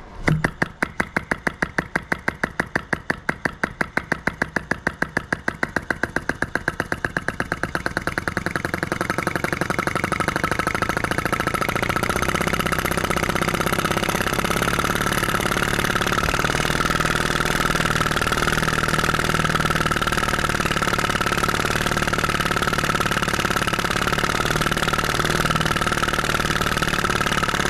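PM Research No. 3 flame licker (vacuum) engine taking off after a flick of the flywheel: a beat of clicks, a few a second at first, quickening over about ten seconds until they blur into a steady fast run. It is running fast on a big flame from a long lamp wick.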